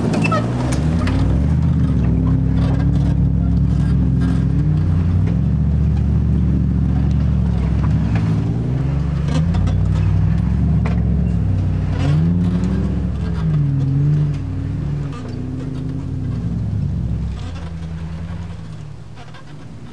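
Jeep Wrangler 4x4's engine working hard off-road, its revs rising and falling again and again, with scattered short knocks. It eases off and gets quieter after about 14 seconds.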